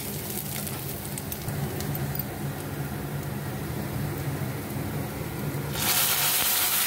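Chopped onions frying faintly in oil in an iron kadhai under a low steady hum. About six seconds in, a sudden loud sizzle as puréed chickpea-leaf saag is poured into the hot oil.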